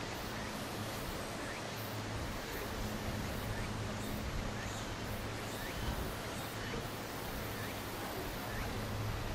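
Steady background noise with a low hum that comes and goes, and faint short high chirps scattered through it.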